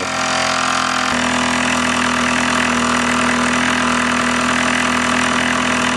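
Mamod Minor 1 disc-crank toy steam engine running fast in steam, driving a toy workshop's shafting through string belts: a steady, busy mechanical whirr, with a steady hum setting in about a second in.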